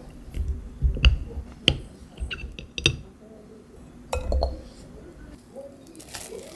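Dishware clinking as it is handled: about four sharp clinks with a short ring, between soft low knocks.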